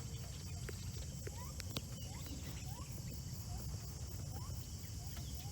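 Quiet roadside ambience: a steady high insect drone, a bird giving a series of short rising chirps, and a low rumble underneath.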